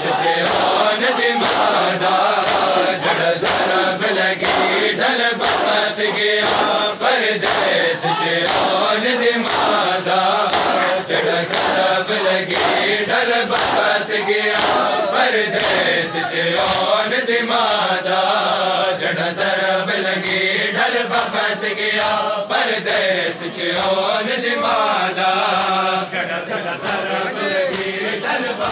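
A crowd of male mourners chanting a lament in unison, with a steady beat of hands striking bare chests in matam, about two strikes a second.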